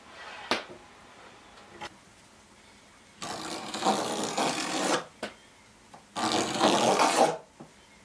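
Wood scraping against a pine board in two long strokes, the first lasting nearly two seconds and the second about a second, after a sharp knock just after the start.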